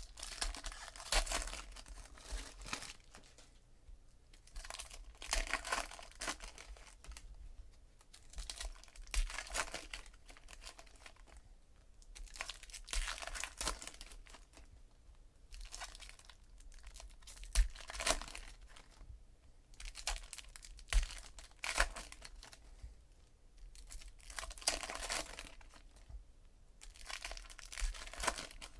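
Wrappers of 2017 Donruss Optic baseball card packs being torn open and crinkled by hand, in repeated short bursts every few seconds.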